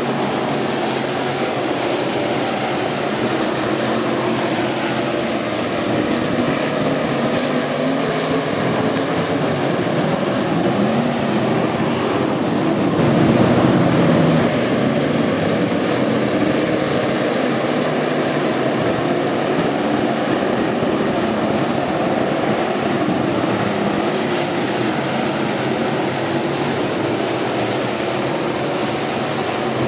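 A field of V8 stock car engines running at racing speed on a dirt oval, a steady blended drone of several cars at once, swelling briefly about halfway through.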